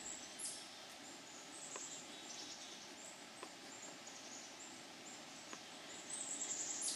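Quiet woodland ambience: repeated high-pitched chirping runs throughout, with a few faint ticks.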